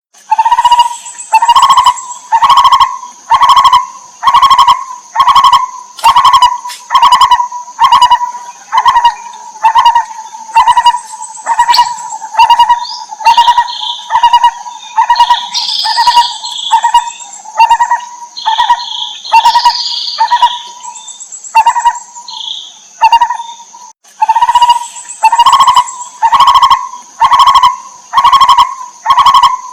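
Lineated barbet calling: a loud, mellow note repeated evenly, about one and a half times a second, over a steady high-pitched hum. Higher chirps from another bird join in the middle, and the calling breaks off briefly near the end before going on.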